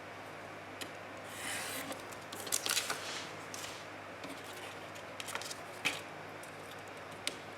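Paper and craft tools handled on a work table: a brief rustle of paper about a second in, then a scattering of light clicks and scrapes.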